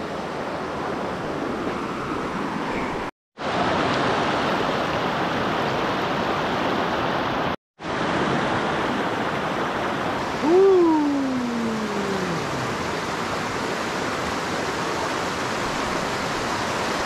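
Steady rushing of a flowing stream, broken twice by brief dropouts to silence. About ten seconds in, a single drawn-out call falls in pitch over about two seconds, the loudest moment.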